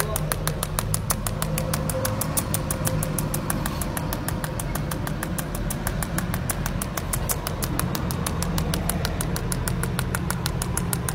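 Jasic TIG 300S welder in cold-welding (pulsed TIG) mode: the arc pops in short, evenly spaced pulses several times a second, over a steady low hum.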